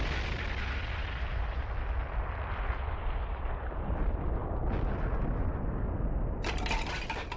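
Deep rumbling tail of a large explosion, slowly dying away, with a short hissing burst of noise near the end.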